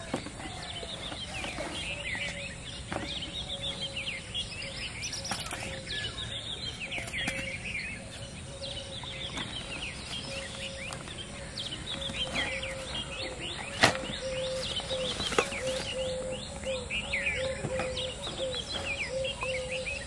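Many small birds chirping and calling over a steady low tone, with one sharp knock about fourteen seconds in.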